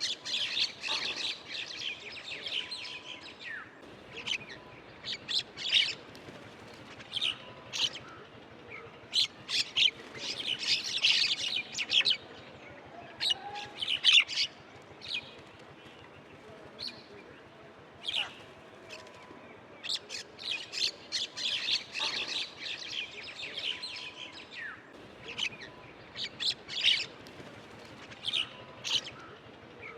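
Several small birds chirping: many short, high calls that overlap, thickening every so often into busy bouts of twittering.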